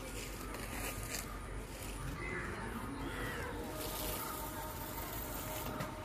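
Quiet riverside ambience with a few short bird calls near the middle and some light clicks and handling noises.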